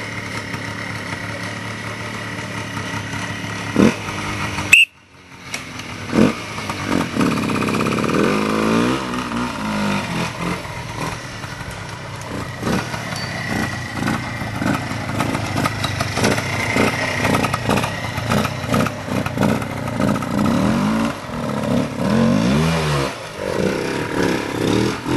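Vintage trial motorcycle engine blipped and revved again and again as the rider climbs a rough woodland section, its pitch rising and falling. There is a sharp click and a brief dropout about five seconds in.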